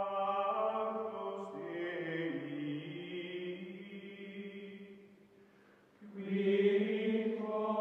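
Music of a slow chanted choir: long held notes that shift in pitch, dying away about five seconds in and coming back louder a second later.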